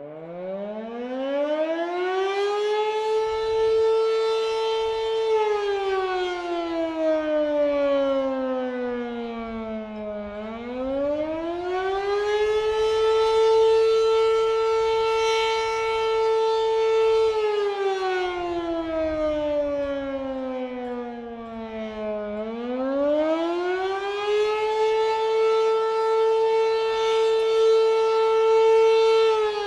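Fedelcode Model 7 outdoor warning siren starting up and sounding its weekly test wail: it winds up from a low tone to a steady high tone over the first few seconds, holds, then slides down and back up again about every twelve seconds. Wind rumbles on the microphone underneath.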